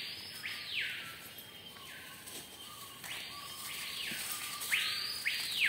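Forest animal calls: overlapping calls that each sweep up in pitch, hold, then drop back, repeating every second or two.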